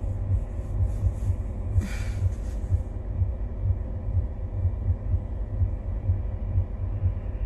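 Low, pulsing rumble inside a moving car's cabin, about three pulses a second, from the engine and road.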